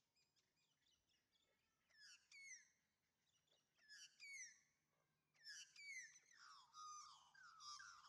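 Faint bird calls: short clusters of quick notes that each sweep down in pitch, about two, four and five and a half seconds in, running into a longer, lower warbling near the end.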